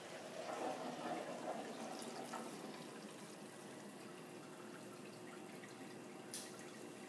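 Dip-and-dunk film processing machine running, with liquid sounds of water and dripping from its chemical tanks. A single sharp click comes about six seconds in.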